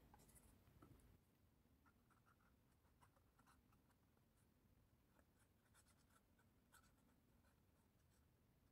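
Near silence, with a few faint ticks and rustles of paper card being handled.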